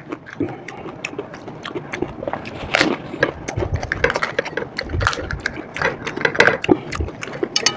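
Crisp pani puri shells cracking and crunching as they are poked open and chewed: a rapid, irregular run of short crackles and clicks.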